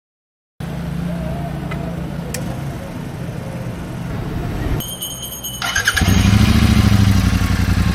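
Royal Enfield Super Meteor 650's parallel-twin engine running, cutting in abruptly about half a second in. It breaks off for about a second around five seconds in, then runs louder to the end.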